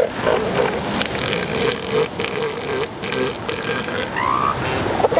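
Female northern elephant seal calling with her mouth open while a bull mounts her: a long, wavering call held at one pitch, her protest at the mating attempt. Around four seconds in a shorter, higher rising call joins it, all over a steady background rush.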